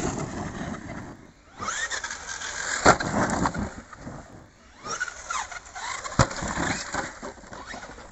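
Arrma Kraton 4S RC monster truck's brushless electric motor whining in three bursts of throttle, each time rising in pitch as the truck accelerates. Sharp impacts about three seconds in and again about six seconds in, from the truck landing hard on the dirt jumps.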